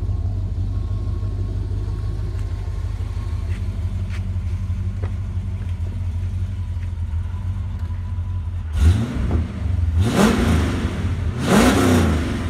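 Ford Falcon XR8 ute's V8 idling with a steady low rumble through its stainless dual exhaust, then revved three times in the last few seconds: one short blip, then two longer revs that rise and fall.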